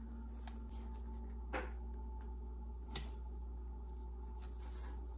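A pet rabbit moving about among hay and cardboard boxes, making a few faint light taps and rustles over a steady low room hum.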